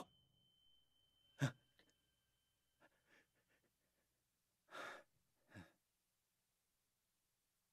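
Near silence broken by a man's breaths: a sharp intake about a second and a half in, then a longer exhale and a shorter breath around five seconds in. A faint high steady tone hangs in the first few seconds.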